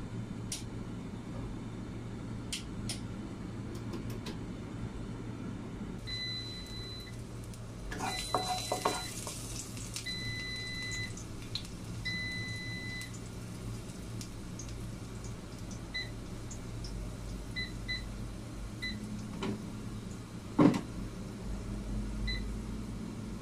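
An electronic appliance beeps four times, each beep about a second long, over a steady low kitchen hum. About eight seconds in there is a short burst of sizzling as chopped pieces go into hot oil in a stainless steel wok. Later come a few short chirps and, near the end, one sharp knock, the loudest sound.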